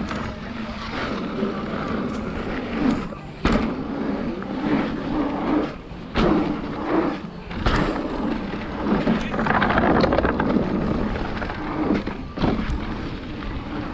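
Mountain bike rolling fast down a rough dirt trail: knobby tyres running over dirt and rock, the bike rattling, with several sharp knocks as it hits bumps.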